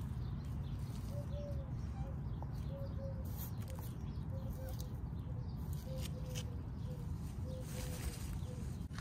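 A kitchen knife sawing through a pumpkin's stem, with a few faint clicks, over a steady low rumble. A bird calls faintly in the background, a run of short, evenly spaced notes about two a second.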